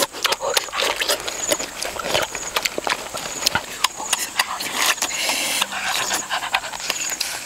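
Close-up eating sounds of two people biting and chewing juicy fruit and cooked pig kidney: many wet smacks, slurps and crunchy clicks in quick irregular succession.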